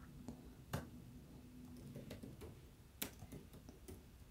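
Faint clicks of computer keyboard keys being typed, a few scattered at first and then several in quick succession near the end.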